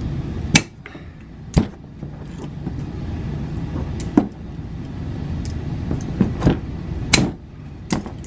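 Sharp metal clicks and snaps of vice grips (locking pliers) being readjusted and clamped down to close a crimp on the leash's cable leader, a few single clicks spread through, over a steady low hum.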